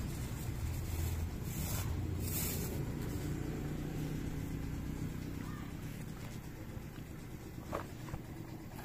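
A vehicle engine running steadily at low speed, with a few light clicks in the first seconds.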